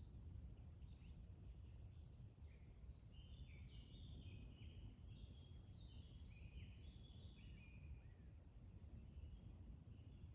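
Faint forest ambience: a songbird sings a run of short chirping notes for several seconds over a low steady rumble and a thin, steady high tone.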